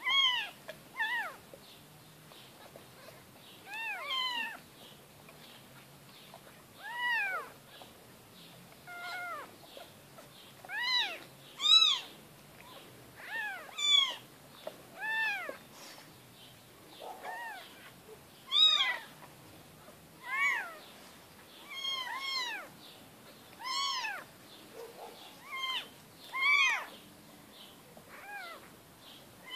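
Young kittens mewing over and over: short high-pitched cries, each rising and then falling in pitch, about one every one to two seconds.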